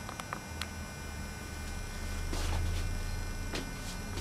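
Low, steady electrical hum that comes in about half a second in and swells a little in the middle, with a few faint clicks near the start.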